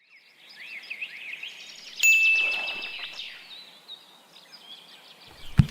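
Birds chirping over faint background hiss, with many short quick chirps. About two seconds in a sharper sound comes in with a steady high tone that fades, and there is a short thump near the end.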